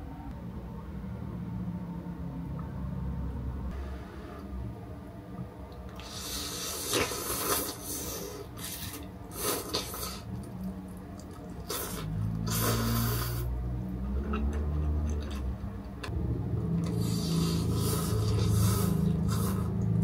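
Tom yum instant noodles being slurped from a paper cup, in several short bursts, with a plastic fork scraping in the cup.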